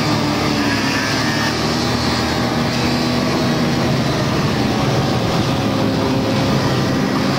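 Snowmobile engine running steadily and loudly.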